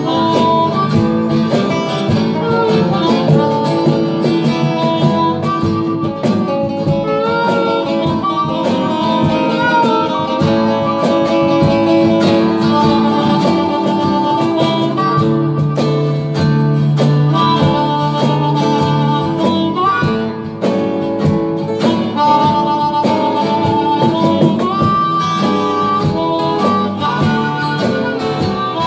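Live blues band playing: a harmonica plays held and bent notes over guitar accompaniment.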